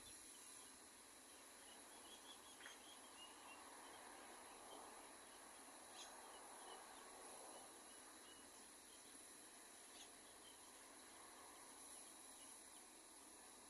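Near silence: a faint steady outdoor hiss with scattered faint, high, short bird chirps and a few soft clicks.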